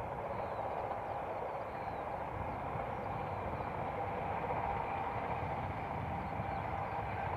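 A distant InterCity 125 (HST) running at speed, its Class 43 diesel power cars giving a steady drone with a held whine over a low rumble.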